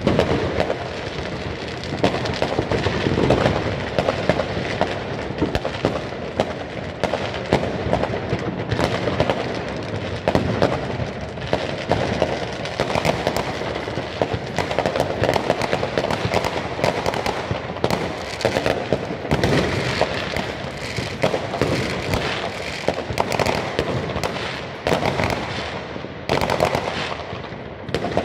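Many fireworks and firecrackers going off at once: a dense, unbroken run of bangs, pops and crackles with no pause, as aerial shells burst over the rooftops.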